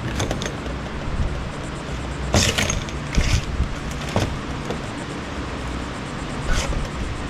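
Wire cutters snipping through internal wiring of an electronic unit being scrapped: a handful of short, sharp snips spaced a second or two apart, over a steady low background hum.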